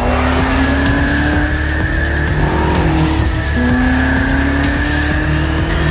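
BMW M8 Competition's twin-turbo V8, breathing through catless downpipes, accelerating hard: the engine note rises in two pulls, with a drop for a gear change about three seconds in. Background music plays underneath.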